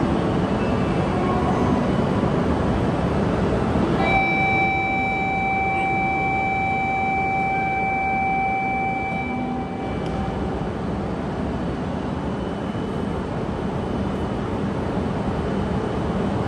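Steady hum of an E5 series Shinkansen train standing at the platform. About four seconds in, a steady electronic departure buzzer sounds for about six seconds, warning that the doors are about to close.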